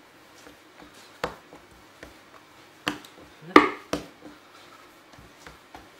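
Hands kneading and folding semolina dough on a wooden worktop: a few sharp slaps and knocks, the loudest pair about three and a half seconds in.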